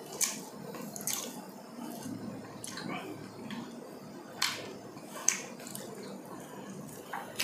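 Close-miked eating: short wet mouth clicks and lip smacks, a sharp one every second or so, over a low background of chewing and fingers picking flesh from cooked yellowfin tuna.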